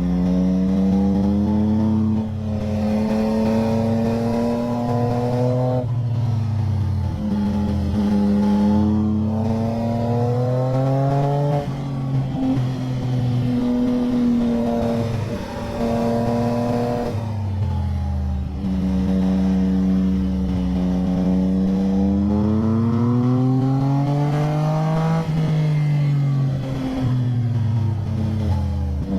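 Motorcycle engine pulling hard through the gears. Its pitch climbs several times, drops suddenly at each upshift, and falls away more slowly when the throttle is eased off.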